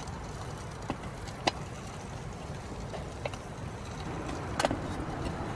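A few sharp metal clicks and clinks from a hinged hot-sandwich pan and its handle clip being handled. The loudest comes near the end and rings briefly. Under them runs a steady low rushing noise.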